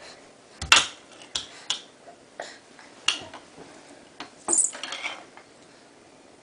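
Irregular clattering knocks of hard kitchen objects, like utensils or dishes being banged, about seven sharp hits with a longer rattle about four and a half seconds in.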